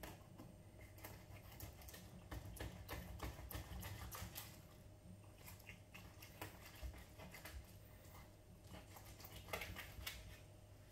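Knife slicing a milkfish on a cutting board: faint, irregular taps and clicks, several a second, over a steady low hum.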